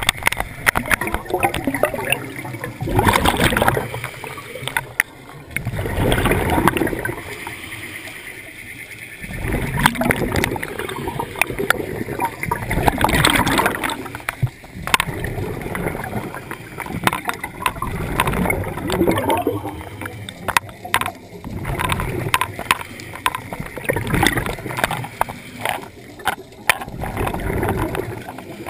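Scuba divers breathing through their regulators underwater: bubbling, gurgling exhalations alternating with quieter stretches, every three to four seconds.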